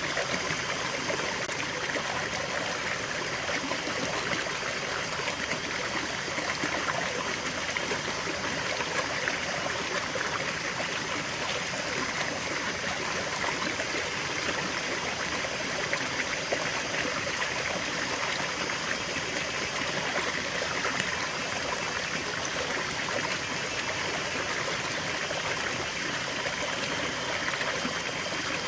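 A small stream flowing and trickling steadily over stones, a constant babble of water.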